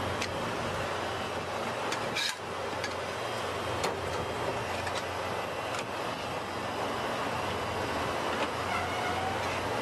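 Steady outdoor background noise with a traffic-like rush, and a few short, sharp clicks scattered through it, one louder about two seconds in.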